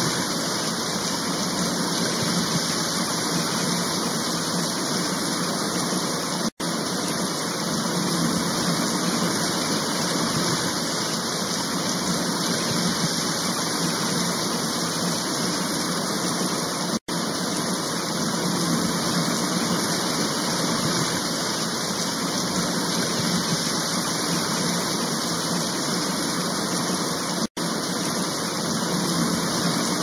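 Steady hiss of heavy rain falling. It cuts out to silence for an instant three times, about ten seconds apart.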